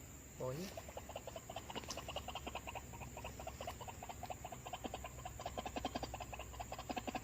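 A fast, even run of repeated croaking animal calls, several a second.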